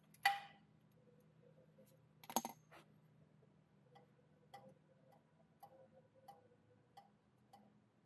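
Faint, evenly spaced clicks of a ratchet wrench working a 10 mm bolt, with a louder click just after the start and another about two and a half seconds in.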